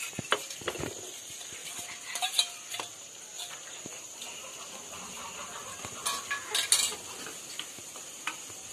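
Spatula scraping and clinking against a pan as onions and tomatoes are stirred, in scattered strokes with a cluster of sharper clinks about six seconds in.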